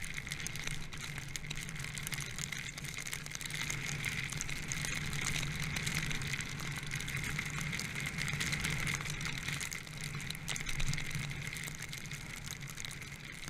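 Steady rushing noise of wind and snow while riding downhill through deep powder.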